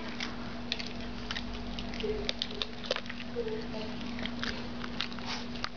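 Small dog eating dry kibble from a stainless steel bowl: irregular crunches and clicks of kibble against the metal.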